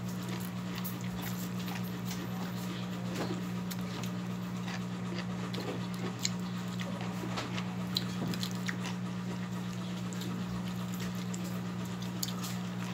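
Close-up eating sounds: chewing and scattered small clicks as fingers pick apart fried tilapia, over a steady low hum.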